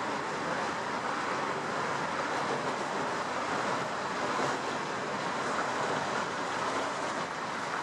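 Steady rushing of wind and sea past the open deck of a moving cruise ship, with no distinct engine note or other events.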